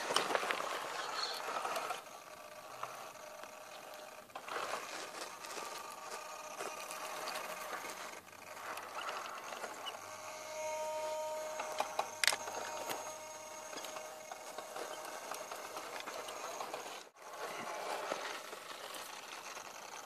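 Electric motor and gear drivetrain of a 1/10-scale RC crawler whining as it crawls, with tires grinding over loose dirt and rock. There is a sharp click about twelve seconds in.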